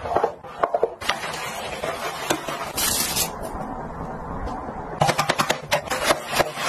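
Stiff-bristled floor brush scrubbing wet bathroom tiles: rough scraping strokes, with clusters of sharp clicks near the start and again near the end, and a short hiss about three seconds in.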